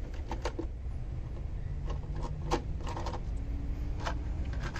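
Light clicks and knocks as a bolted engine cover over the timing chain of a 2.0 TFSI engine is worked loose and lifted off, over a steady low rumble.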